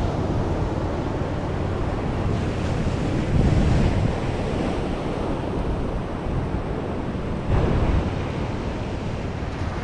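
Surf washing onto a sandy beach as a steady rush, with wind rumbling on the microphone. The sound swells louder twice, about three seconds in and again near eight seconds.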